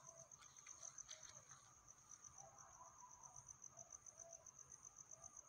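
Near silence but for a faint, high insect trill pulsing evenly about ten times a second.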